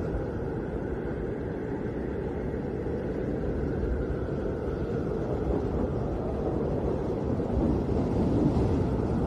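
Snowstorm wind blowing, a steady low rushing noise that swells a little near the end.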